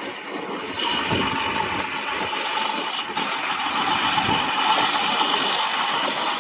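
Jet airliner on approach with its landing gear down: a steady engine whine and rush that grows louder as it comes in, with a high whistling tone entering about a second in.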